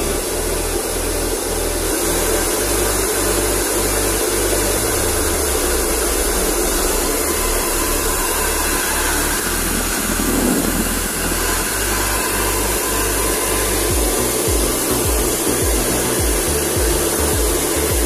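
A 3200 W GW hair dryer running steadily with a loud fan-and-airflow whoosh. About ten seconds in, the nozzle is turned toward the microphone and the air blast briefly buffets it.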